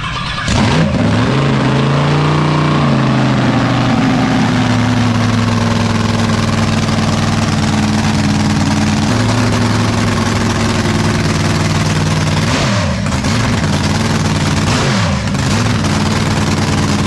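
Supercharged drag-boat engine with open zoomie headers starting up about half a second in, revving briefly, then running loud and steady. Near the end the revs sag and pick back up twice.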